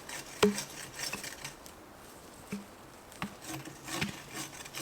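Axe chopping limbs off a felled spruce trunk: a few sharp separate strikes, the loudest about half a second in and the rest spread over the second half.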